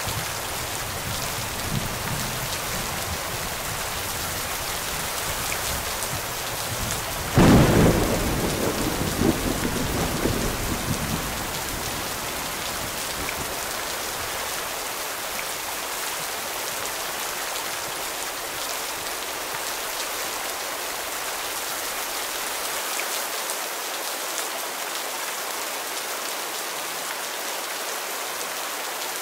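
Steady heavy rain, with a single sharp thunderclap about seven seconds in that rumbles away over the next few seconds.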